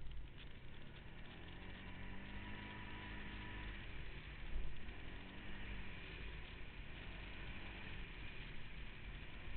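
Off-road vehicle engine running under way, its pitch rising and falling as the throttle is opened and eased, over a steady low rumble, with a brief louder bump about four and a half seconds in.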